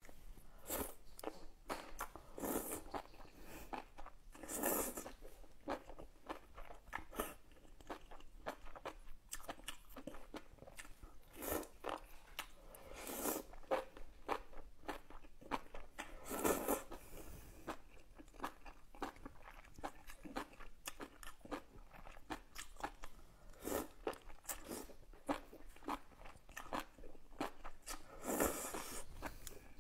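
Close-miked eating of noodles in spicy broth: repeated slurps of the noodles, about seven in all, between wet chewing and mouth clicks.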